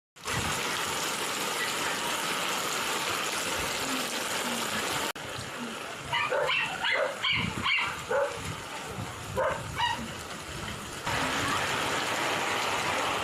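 A dog barking in short bursts, several times in quick succession about six to eight seconds in and once or twice more near ten seconds, over a steady rushing noise.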